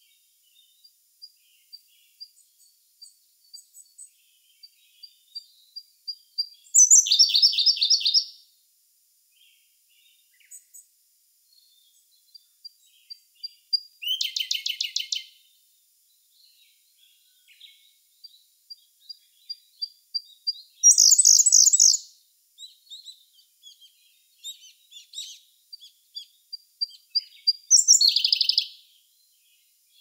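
Siberian blue robin singing: four songs about seven seconds apart, each a run of soft, quickening high ticks leading into a loud, rapid trill that lasts about a second and a half.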